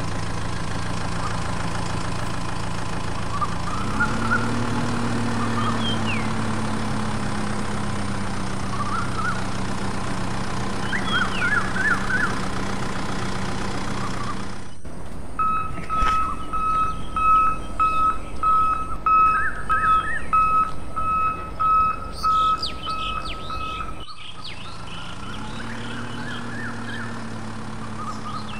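A steady low motor hum with birds chirping over it; the hum rises in pitch about four seconds in and then settles. Partway through it cuts abruptly to a steady high electronic tone for several seconds, then the hum and its rise return.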